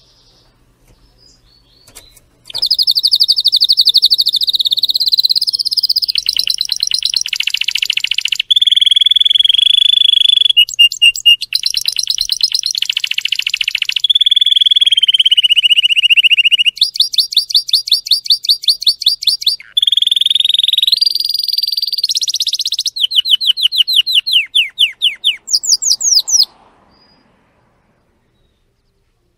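Domestic canary singing a long song of fast trills and rolls, phrases of rapidly repeated notes that change every few seconds. It starts about two seconds in and stops a few seconds before the end.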